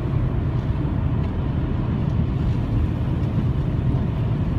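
Steady road and engine noise heard inside the cabin of a Mercedes CLK320 driving at speed on a rural road, a constant low rumble with no change.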